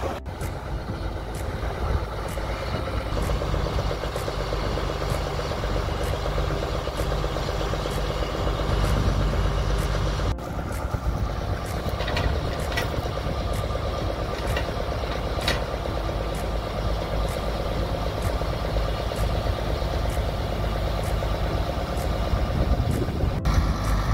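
Diesel engine of a Case IH loader tractor running steadily.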